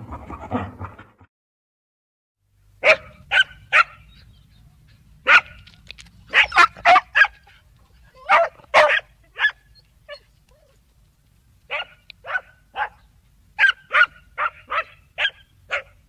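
A dog barking: short sharp barks, some single and some in quick runs of two to five, starting about three seconds in, over a faint low hum. The first second holds the fading end of a previous sound.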